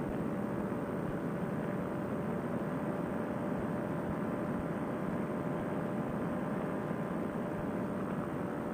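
Two-stroke Fresh Breeze Monster paramotor engine and propeller running steadily in level flight: an even drone with no change in throttle.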